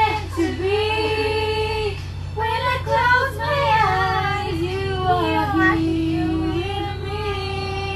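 A girl's voice singing a slow melody with long held notes, over a steady low hum.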